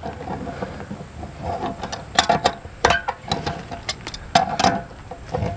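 A tight threaded fitting being unscrewed from the steel tank of a Suburban RV water heater: irregular metal clicks and short squeaks from the wrench and the turning threads.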